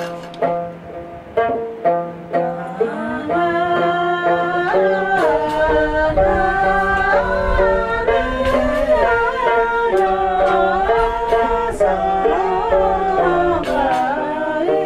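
Background music: a plucked string instrument over a steady drone, joined by a singing voice with gliding melodic lines from about three seconds in.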